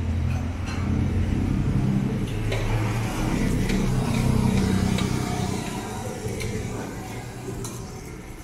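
Street traffic: a motor vehicle's engine passing close by, building to its loudest over the first few seconds and fading away toward the end.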